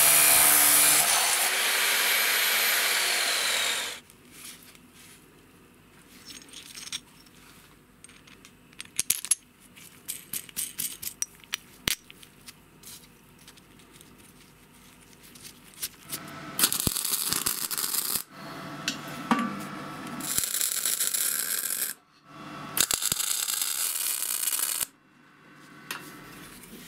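Workshop work on metal: a steady hiss that cuts off about four seconds in, then a long stretch of light clicks and taps, then four hissing bursts of about two seconds each, each starting and stopping sharply.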